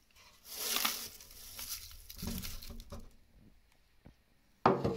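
Dry rustling and scraping as dried bracken starch flakes are handled, with one sharp knock near the end.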